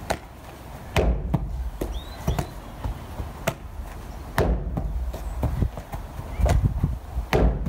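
Rugby ball spin-passed against a wooden shed wall: several sharp knocks of the ball striking the boards, with softer slaps of the ball being popped up and caught in the hands between them.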